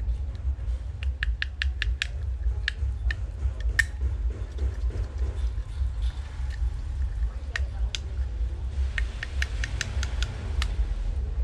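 Light clicks and scratches in short quick runs, from scraping and peeling the old polarizer film and adhesive off a motorcycle's LCD dashboard screen, over a steady low hum.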